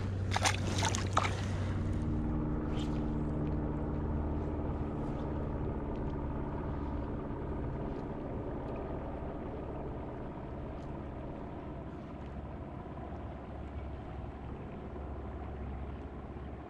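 A steady motor hum of several held tones, shifting to a higher set of tones about two seconds in and slowly fading, over an even rushing noise. A few sharp clicks come in the first second or so.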